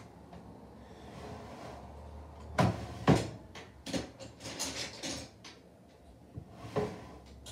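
Things being handled and rummaged through: two loud knocks about two and a half and three seconds in, then lighter knocks and rustling, and one more knock near the end.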